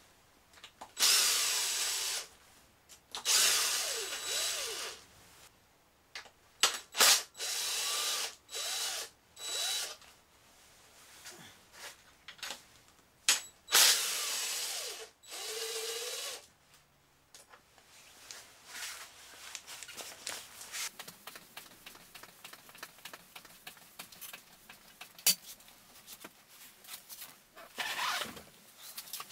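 Cordless drill-driver spinning screws out of an electric unicycle's plastic-and-metal casing in about eight short runs over the first sixteen seconds. After that come quieter clicks and rattles as the loosened parts are handled, with one more brief burst near the end.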